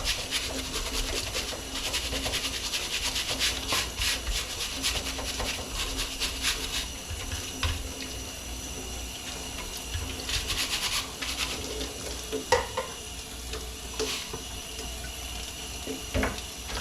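Water running from a tap and splashing through a bird feeder as it is rinsed under pressure to flush out caked, stuck seed, with scattered knocks and clatter from the feeder being handled. The water is heavier over the first two-thirds and eases off near the end.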